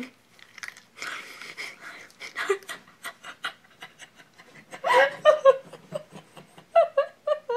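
A person laughing: breathy, stifled giggles at first, breaking into louder short bursts of laughter about five seconds in.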